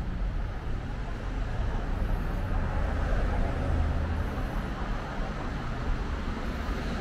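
Street traffic: motor vehicles passing on a city avenue, a steady road rumble that swells about three to four seconds in as one goes by.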